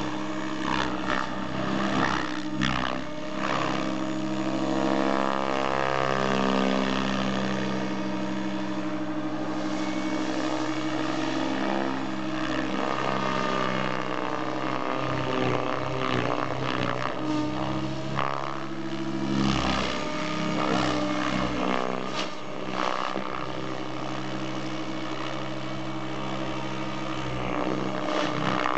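Electric Goblin 700 RC helicopter with a brushless Align 750MX motor flying 3D aerobatics: a steady rotor and motor hum, with the blade noise swelling in brief surges as the manoeuvres load the rotor.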